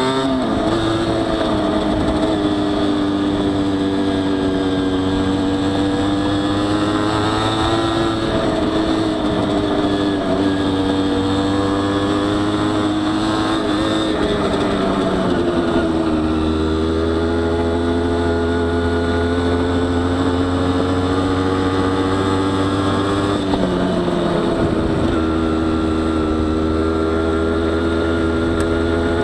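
Honda CRM50 two-stroke single, bored to 63 cc, running under way. Its engine note drops and then picks up again several times as the throttle changes.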